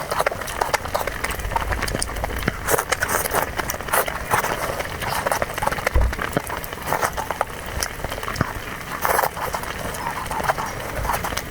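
Close-miked eating: chewing and mouth smacking, a dense run of irregular clicks and smacks.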